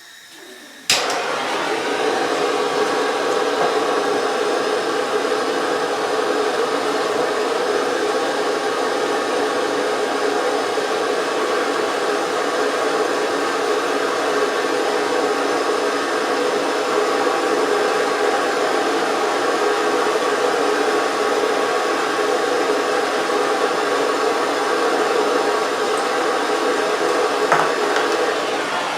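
Handheld plumbing torch burning with a steady, loud hiss as it heats a 1/2-inch copper pipe coupling for soldering. The flame starts with a sharp click about a second in.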